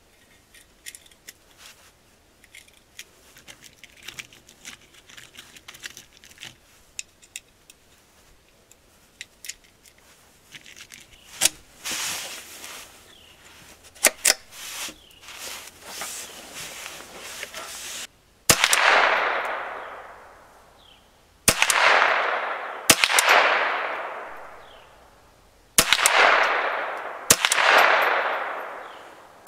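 Henry U.S. Survival (AR-7) semi-automatic .22 LR rifle firing a string of single shots one to three seconds apart, starting about two-thirds of the way in. Each crack is followed by a fading tail about two seconds long. Before the shots there are scattered light clicks and handling knocks.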